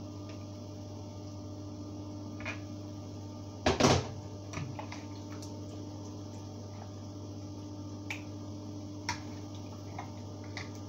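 Batter being mixed into chicken pieces in a glass bowl. There is a loud clatter about four seconds in, then scattered light clinks of a metal spoon against the glass, over a steady mains hum.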